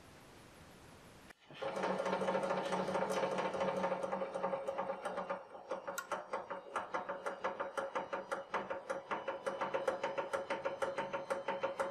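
Hydraulic press pump motor starting up about a second in and running with a steady hum, then a rapid, regular ticking as the ram bears down on an aluminium cylinder and the load climbs.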